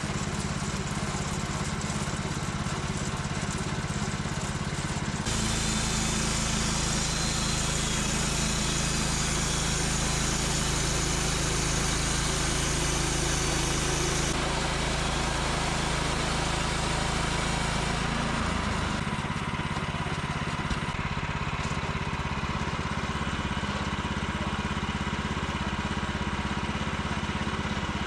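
An engine running steadily without a break. Its low hum changes abruptly about five seconds in and again after about eighteen seconds.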